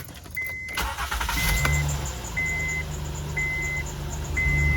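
2011 Honda Pilot's V6 engine cranks and catches about a second in, then idles steadily. A dashboard warning chime beeps about once a second.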